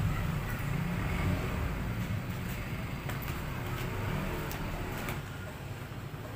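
Low rumble of a passing motor vehicle, slowly fading away, with a few faint clicks as a wrench is handled at the wheel's rim lock.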